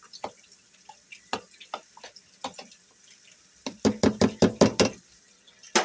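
A spoon stirring a tomato, garlic and herb sauce mixture in a container, with scattered clicks and then a quick run of about eight knocks against the container's sides, a little more than three and a half seconds in.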